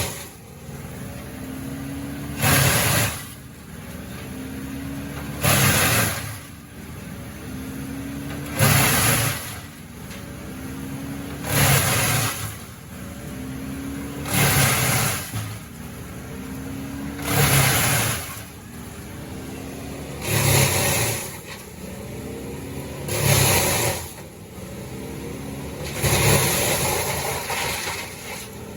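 Bandit 15XP wood chipper running, its engine humming steadily. About every three seconds there is a loud, harsh burst, nine in all, as branches are fed in and chipped.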